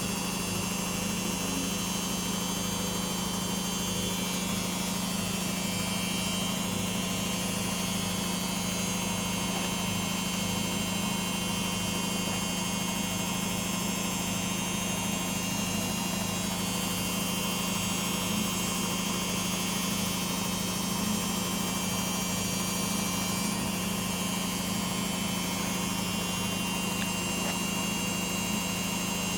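LG WD-80155NUP front-loading washing machine running through its Quick 30 programme: a steady, unchanging motor hum with a faint high whine above it.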